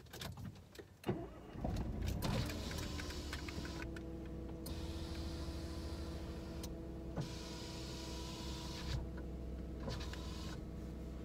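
A click about a second in, then a car engine starts and settles into steady running, heard from inside the cabin.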